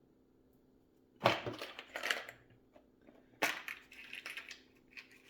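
Metal parts handled on a workbench: a sharp knock about a second in, followed by a brief crunching scrape, then another knock a couple of seconds later with light clicks and rattles.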